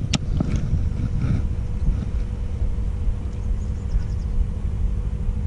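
Wind buffeting the microphone as a steady low rumble. Just after the start there is one sharp click as the rod and reel are handled, followed by a few fainter clicks, with a faint steady hum underneath.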